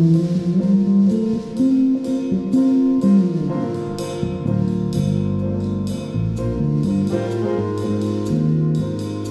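Live jazz trio playing: grand piano, upright bass and drum kit together, with cymbal and drum strokes over the bass line. About three seconds in, the bass slides down in pitch.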